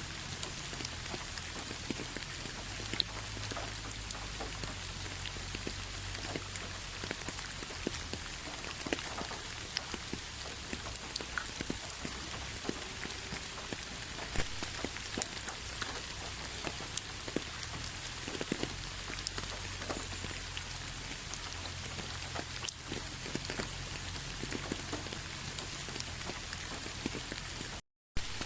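Steady rain falling: an even hiss dotted with many small drop ticks. The sound cuts out completely for a split second near the end.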